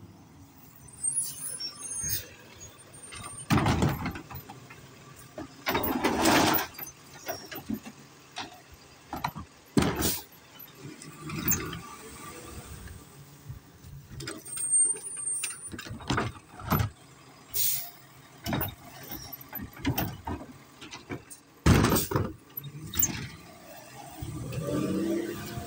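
Garbage truck working at the curb: its diesel engine running under a series of loud bangs and clanks, with short hisses of air brakes.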